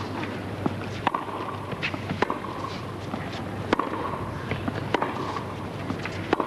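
Tennis rally: a ball struck back and forth by rackets, a sharp hit every second or so, with the players' footsteps on the court between the hits.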